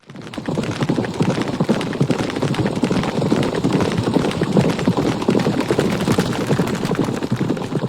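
Hooves clattering densely and unevenly, as of a herd of animals on the move.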